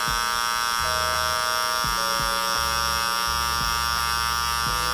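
Cordless hair clipper with an adjustable-lever blade running steadily, a high whine over a motor hum, as it cuts short hair where the sideburn meets the beard. Its hum shifts slightly a few times as the blade works through the hair.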